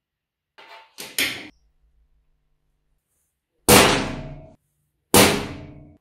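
Two sharp metal-on-metal hammer blows about a second and a half apart, each ringing out for most of a second, after a few light knocks: a center punch being struck to mark the crossing point of scribed lines on a small steel block.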